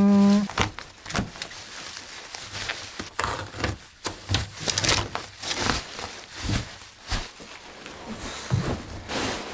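A parcel being opened and unpacked by hand: irregular scraping, rustling and knocks of packaging and handling, with no steady rhythm.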